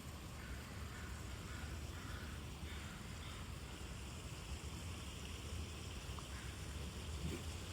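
Steady outdoor background: a low rumble under an even hiss, with a few faint short sounds higher up in the first few seconds and a couple of faint ticks near the end.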